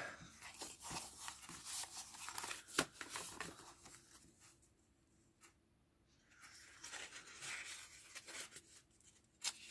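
Sheets of patterned scrapbook paper rustling and sliding against each other as they are handled and leafed through, with a sharper paper snap about three seconds in. A quiet pause of about two seconds in the middle, then more rustling.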